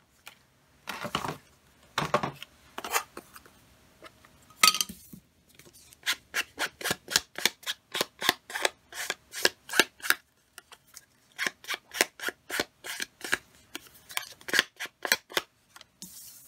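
Small ink pad rubbed in quick repeated strokes along the edges of a cardstock mat, about three or four strokes a second, with a short pause midway. A few knocks come first as tools are set down and picked up.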